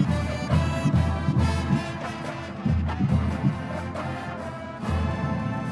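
Marching band brass playing a slow, sustained melody with the trombones carrying it, over a steady low drum beat.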